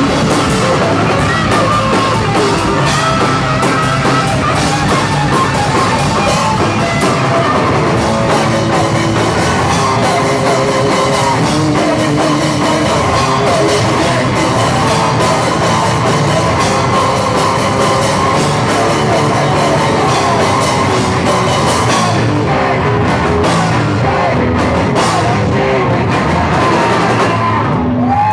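Hardcore punk band playing loud and live: distorted electric guitar through Marshall amplifiers, bass and drum kit, with shouted vocals into a microphone.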